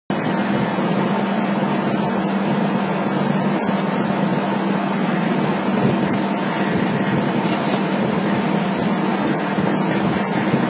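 Steady industrial machinery noise with a constant low hum, with no distinct hammer blows.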